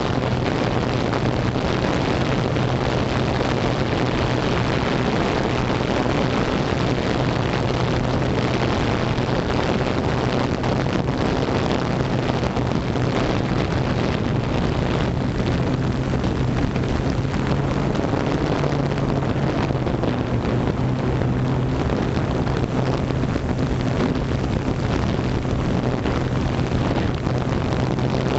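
Drone's electric motors and propellers running with a steady, unbroken hum, heard through the onboard camera's microphone, with wind rushing over the mic.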